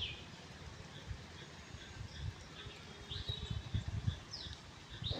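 Small birds chirping: short high calls and quick falling notes, several times, over faint low rumbles.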